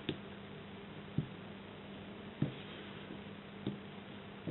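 Short ticks evenly spaced about every second and a quarter, four in all, over a low steady hum.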